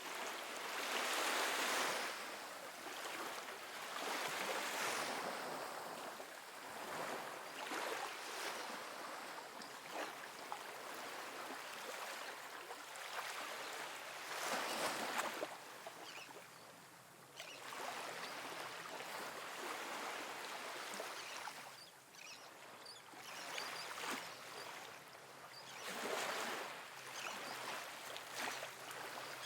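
Calm, soft ocean waves splashing onto a sandy beach. The surf swells and ebbs in surges every few seconds, strongest about a second in, around the middle and near the end.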